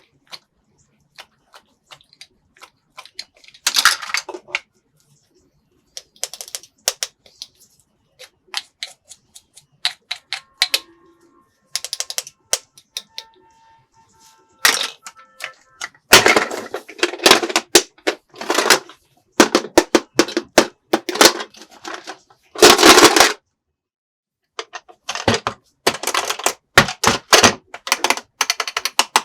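Hard plastic toy pieces clicking and clattering as they are handled: scattered single taps at first, then from about halfway on repeated runs of rapid rattling, each lasting a second or two.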